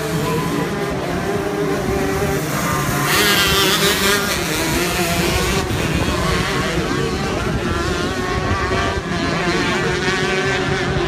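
125cc two-stroke shifter kart engines running at race speed, their pitch wavering up and down. A louder, higher-pitched stretch comes about three seconds in and lasts a couple of seconds.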